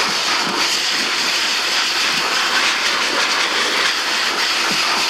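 AIIYME SH-168 pet grooming dryer blowing air steadily through its flat nozzle: a loud, even rush of air with a hissing edge.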